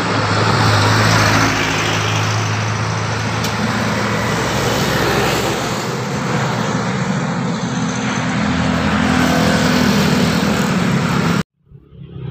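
Roadside traffic with a heavy vehicle's engine running close by, its note climbing partway through. The sound cuts off abruptly near the end and comes back a moment later.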